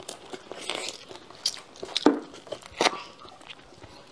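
Close-miked eating sounds of tiger-skin (fried and braised) chicken feet being bitten, sucked and chewed: wet mouth noises broken by several short, sharp crunching clicks, the loudest about two seconds in.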